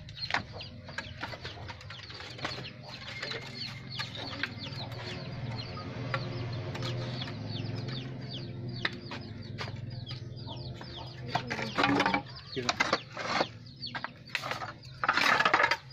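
Clay roof tiles clacking and scraping against one another as they are lifted and shifted by hand, a string of sharp clacks throughout. A steady low hum runs under them for several seconds in the middle.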